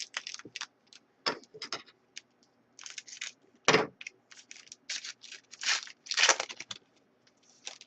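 Trading card pack wrapper crinkling and tearing, with cards being handled: a quick string of short crinkles and snaps. The loudest come about four seconds in and again around six seconds.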